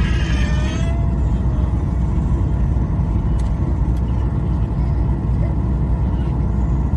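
Steady cabin noise of a Ryanair Boeing 737-800 in flight: the deep rumble of its CFM56 jet engines and the airflow over the fuselage, heard from a rear window seat. A high-pitched voice sounds briefly in the cabin near the start.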